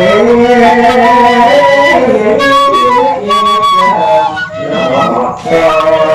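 Male voice singing a Madurese macapat melody, long held notes ornamented with slow glides between pitches, with two brief breaks near the end.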